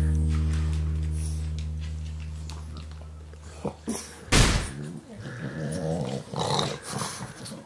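A low held note of background music fades out over the first four seconds; then, about four seconds in, a French bulldog gives a loud short snort, followed by a few seconds of French bulldogs growling and grumbling at each other.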